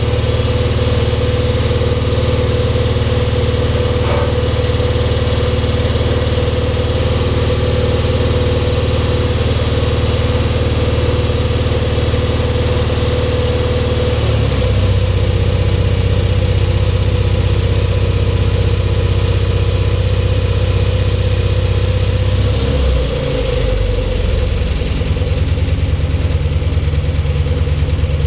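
The small Grove Stevedore crane's propane-fuelled Onan engine running steadily. About halfway through its note drops and gets slightly louder as the crane is worked, and it dips briefly and picks up again a little before the end.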